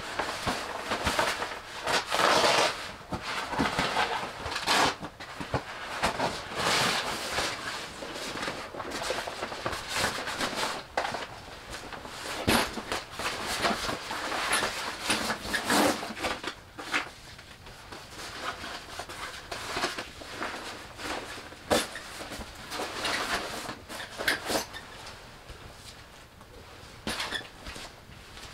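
Irregular rustling and handling of a padded sleeping mat being laid out on a metal folding camp cot, with scattered light clicks and knocks.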